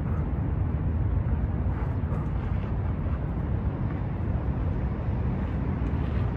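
Steady low outdoor rumble, with a few faint scuffs now and then.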